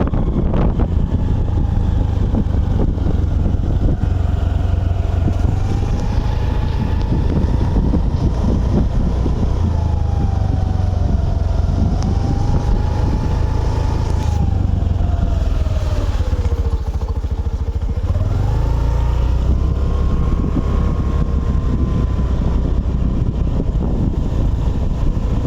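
A vehicle engine running under way, with a heavy low rumble. Its pitch wanders up and down, sinks low about two-thirds of the way in, then climbs back up quickly.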